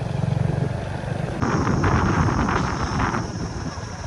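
Motorcycle engine running steadily as the bike is ridden along a road. About a second and a half in, a thin steady high-pitched whine joins it.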